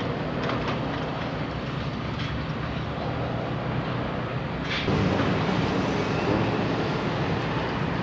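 Construction-site noise: a steady low rumble of heavy machinery with a few sharp metal clanks, growing louder about five seconds in.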